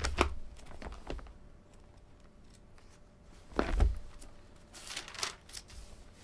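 Thin Bible pages being leafed through and turned by hand: several papery rustles and flips, with a soft thump a little before the middle-to-end, the loudest moment.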